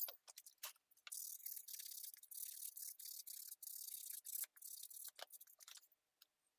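Faint scratchy rubbing broken by light clicks and ticks, from a Dremel rotary tool and a sanded EVA foam piece being handled and rubbed in the hands.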